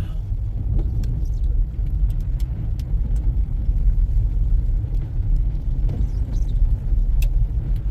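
Steady low rumble of a car driving through a blizzard, heard from inside the cabin: road and wind noise, with a few faint scattered ticks.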